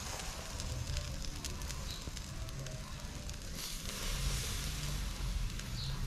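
Chicken drumsticks sizzling on a grill over a charcoal coal pot, the hot coals crackling as sauce from a basting brush drips onto them. The sizzle grows louder about three and a half seconds in.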